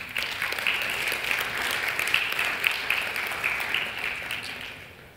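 Congregation applauding, a dense patter of clapping that starts at once and dies away toward the end.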